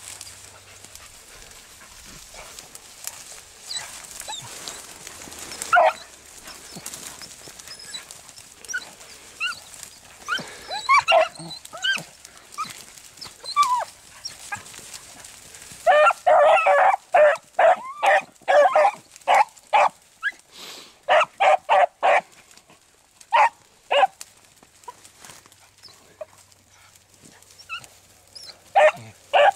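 Pack of beagles giving tongue on a rabbit's scent. Faint, scattered barks come first, then loud, rapid, overlapping baying about halfway through, easing to spaced barks near the end: the hounds have struck the rabbit's trail.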